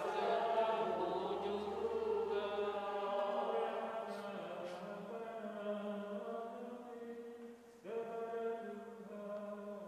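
Voices singing a chant with long held notes, a new phrase starting about eight seconds in.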